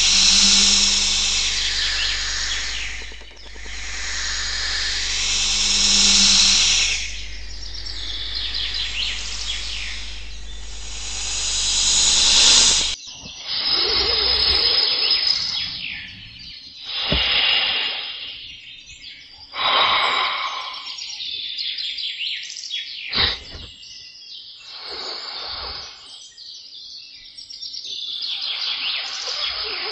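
Dense outdoor chorus of birds chirping and insects calling. About halfway through it cuts to a sparser run of separate noisy bursts, each a second or two long, still with chirps in them.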